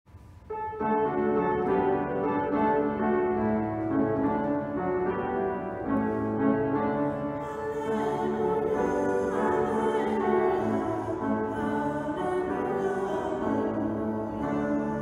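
Slow classical-style music with sustained notes, starting suddenly about half a second in.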